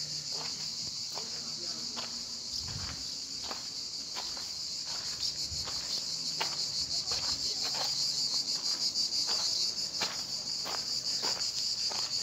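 Insects chirring in a dense, steady, high-pitched drone from the surrounding pines, with irregular light footsteps.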